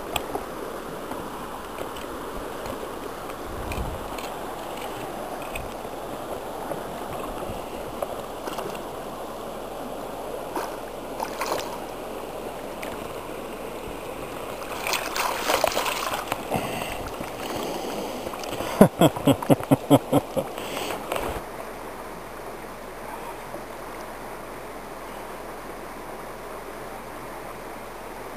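Steady rush of river current, with a louder splashy swell in the middle followed by a quick run of about eight sharp knocks, roughly four a second.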